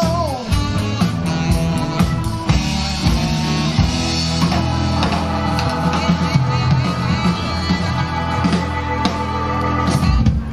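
Live rock band amplified through the PA, heard from about 100 ft away: electric guitar, bass and drum kit with a steady beat. The music stops abruptly at the very end.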